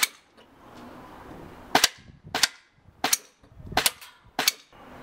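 Tokyo Marui HK45 Tactical gas blowback airsoft pistol firing semi-automatic shots, each a sharp crack as the gas fires the BB and cycles the slide. There are about six shots, roughly one every two-thirds of a second, beginning about two seconds in, after a single click at the very start.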